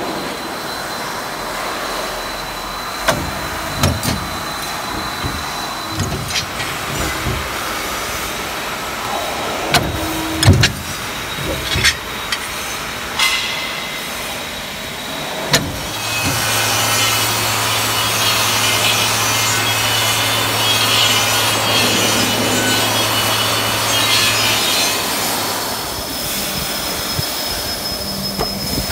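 Hydraulic metal-working machines (punch presses and a guillotine shear) cutting and punching steel bar and plate. Sharp metal clanks come at irregular moments as the tools strike the steel, and from about halfway there is a steady motor hum with hiss for several seconds.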